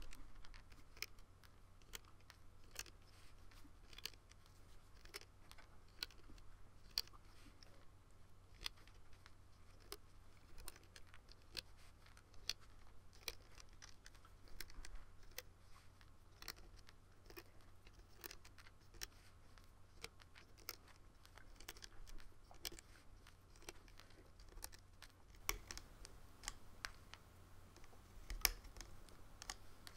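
Faint, irregular small clicks and snaps, one or two a second, of rubber loom bands being stretched and pushed down onto the plastic pins of a Rainbow Loom.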